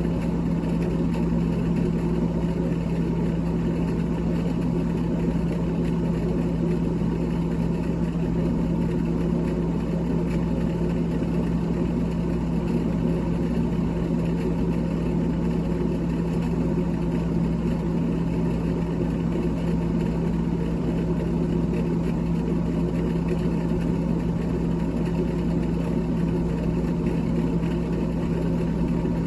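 Steady electric motor hum with a strong low tone and an even whirring noise above it, unchanging throughout.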